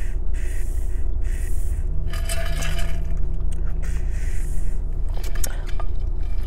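Gulping water from a large insulated bottle with a spout lid: several swallows about a second apart. Near the end come a few sharp clicks as the bottle is handled. A steady low rumble runs underneath.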